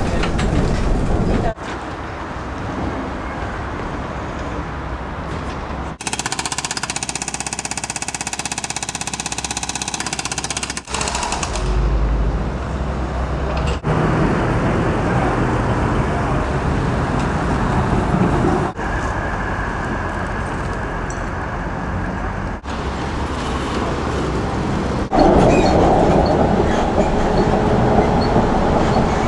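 Vienna street trams running on rails: the rumble and rattle of the ride heard from inside the car, and trams at a trackside stop where track works are under way. These come in several short clips, each starting and stopping abruptly. A stretch in the middle carries a steady, high, multi-toned whine.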